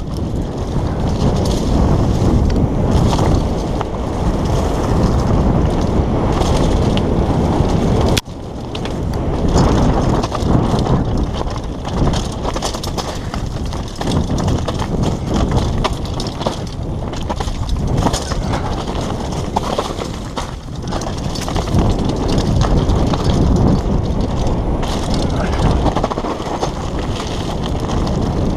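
Helmet-mounted camera audio of a downhill mountain bike at speed on a rocky trail: a steady rush of wind on the microphone over tyre rumble and the rattling and clattering of the bike over stones. The noise drops sharply for a moment about eight seconds in, then picks up again.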